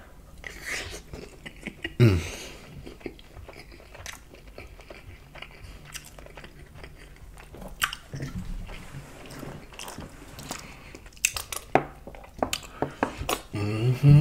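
Close-miked chewing of a mouthful of jambalaya: wet mouth clicks, with a run of sharp crunchy bites in the second half.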